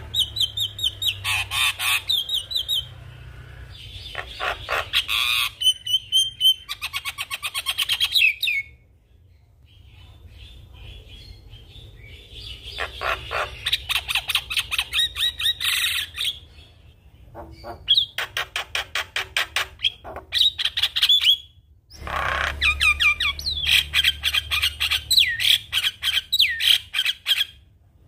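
Javan myna (jalak kebo) calling vigorously: harsh, rapidly repeated chattering notes and squawks in several bursts, with short pauses between them.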